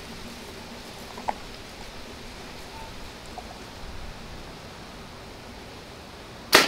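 A compound bow is held at full draw over faint, steady outdoor background noise, then shot near the end with a single loud, sharp snap of the string.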